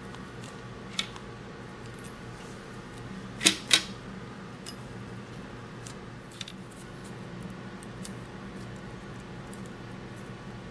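Small metal clicks and taps as Allen head screws are set into the metal plate of a Hydra-Cell pump and turned in by hand. The loudest is a sharp pair of clicks close together about three and a half seconds in, with fainter scattered ticks throughout, over a faint steady hum.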